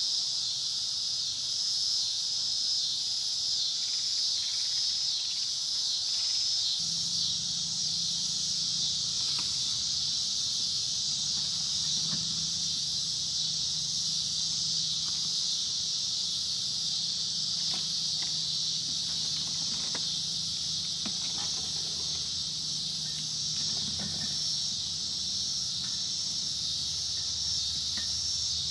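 Insect chorus: crickets chirping in a dense, steady, high-pitched trill. A low hum comes in about a quarter of the way through, with a few faint clicks and knocks.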